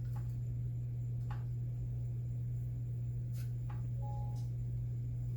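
A steady low hum, with a few faint taps of a spoon against the baking sheet as pan juices are spooned over the baked chicken drumsticks.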